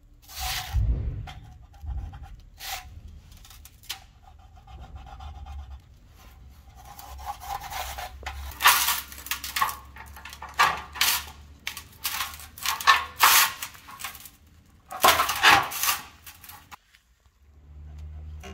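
Offset aviation tin snips cutting galvanized sheet steel along a marked line: a run of short, sharp snips one after another, filling the second half and stopping a couple of seconds before the end. Before that, the sheet is handled with a few separate knocks.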